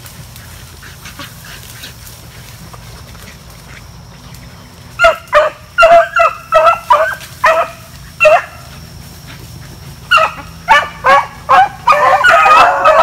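Beagle hounds baying on a rabbit's trail. After a few quiet seconds a string of short, repeated bays starts about five seconds in, breaks off briefly, and near the end several hounds overlap in a continuous chorus.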